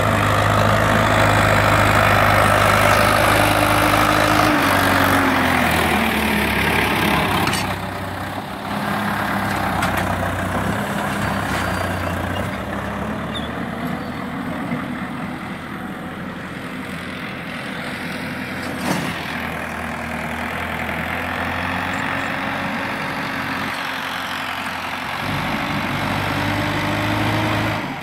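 Preet 60 hp diesel tractor engine running under load as it drags a rear leveller blade through soil. The engine note is loudest in the first few seconds, then sags and rises again several times as the load changes, with one short click about two-thirds of the way through.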